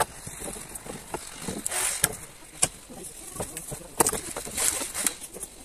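Dry deadwood poles knocking against each other and the trailer as they are loaded, a few sharp wooden clacks with rustling between them. The loudest clack comes about four seconds in.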